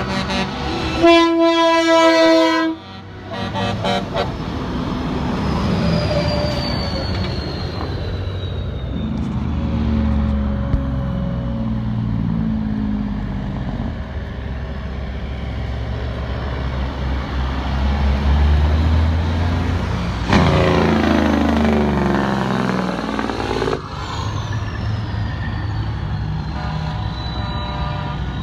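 Semi-truck air horn blasting about a second in, held for under two seconds, over the diesel engines of big rigs in a convoy rolling past. Around twenty seconds in there is a second loud blast whose pitch shifts as the trucks go by.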